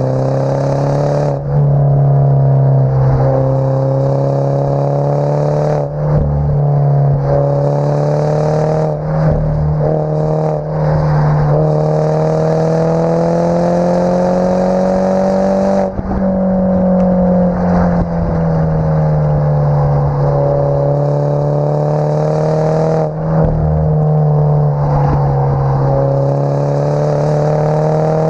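Exhaust note of an F56 Mini Cooper S's turbocharged 2.0-litre four-cylinder through an Invidia Q300 cat-back exhaust in sport mode while driving. Its pitch rises and falls slowly with engine speed, with a few brief drops in level. It is muffled by the waterproof camera case.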